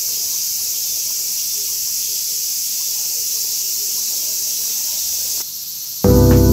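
Steady, shrill chorus of summer insects, unbroken until it cuts out about five and a half seconds in. Half a second later a hip-hop beat with sustained chords starts, louder than the insects.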